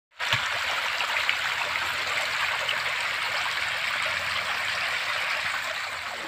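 Water rushing steadily down a narrow concrete irrigation channel, an even splashing flow that eases slightly near the end.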